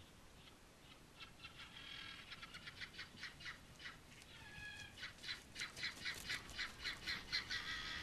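Young emus peeping: a fast run of short, high chirps, several a second, that grows louder over the last few seconds.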